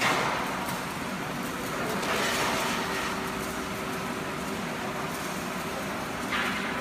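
Steady factory machinery noise with a faint steady hum, broken by short hissing bursts at the start, about two seconds in, and near the end.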